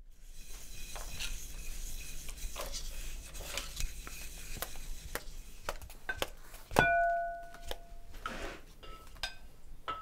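Hard objects clinking, tapping and knocking, with scraping between them. About seven seconds in comes one loud clink that rings for about a second, followed by several small pinging clinks.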